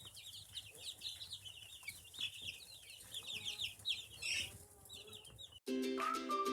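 A flock of young meat chicks cheeping, many high overlapping peeps at once. About five and a half seconds in it cuts off suddenly and music with plucked notes begins.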